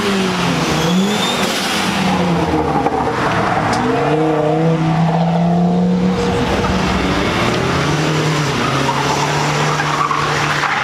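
A car engine revving hard as the car accelerates away, its pitch climbing and dropping several times with gear changes, then running steadier.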